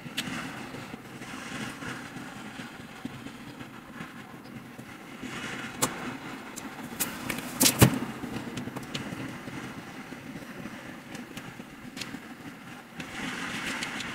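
Scattered knocks and clicks from handling a flat-pack particleboard cabinet during assembly, with a loud knock about eight seconds in, over a steady low hum.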